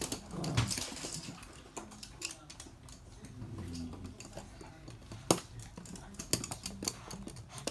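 Toy poodles' claws clicking irregularly on a hard floor as they run about playing, with one louder tap about five seconds in.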